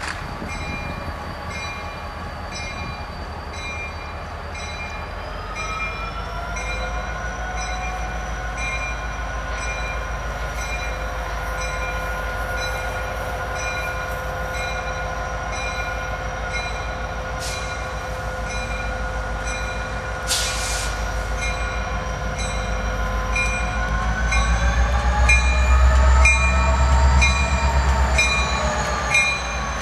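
Diesel freight locomotive approaching, its multi-chime air horn sounding one long held chord from about six seconds in. The chord's pitch bends near the end as the low engine rumble swells to its loudest. Throughout, a grade-crossing bell rings at about two strikes a second.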